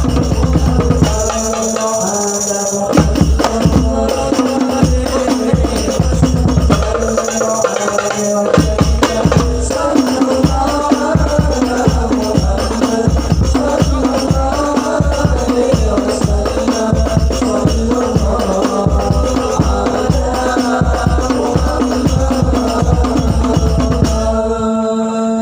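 Music: drums and jingling, rattling percussion in a fast steady rhythm under a melody line. The beat drops out twice for a held chord, and the piece ends on a held note near the end.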